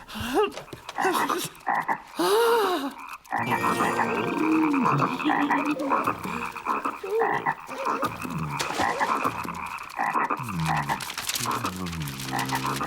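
Cartoon frogs croaking: a few separate croaks at first, then from about three seconds in many croaking at once in a dense, continuous chorus.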